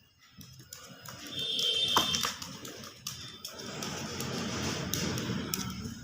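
A pet parrot gives a short high whistle about a second and a half in, among scattered clicks and taps.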